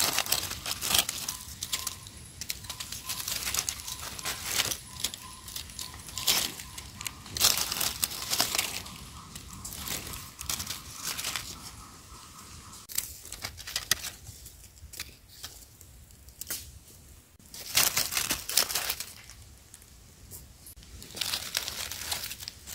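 Dry fallen leaves rustling and crackling as hands dig through the leaf litter to pick mushrooms, in irregular bursts, loudest about eight and eighteen seconds in.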